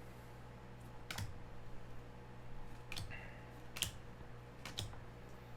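Four light, sharp clicks spaced about a second apart, over a faint steady electrical hum.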